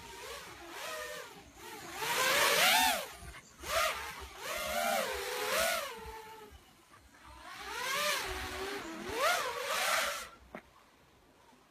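Racing quadcopter's brushless motors and propellers revving up and down with the throttle: a whine whose pitch rises and falls in swells of about a second, with a rushing hiss of air at the loudest moments, strongest two to three seconds in and again near the end.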